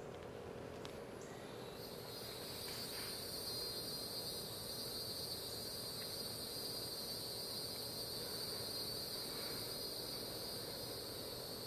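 A singing insect, cricket-like, starts a steady, high-pitched continuous trill about two seconds in, over faint outdoor background hiss.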